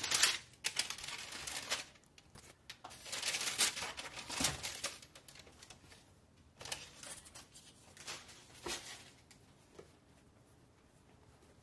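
Tissue paper crinkling and rustling as it is handled in a shoe box, in several separate bursts that die away near the end.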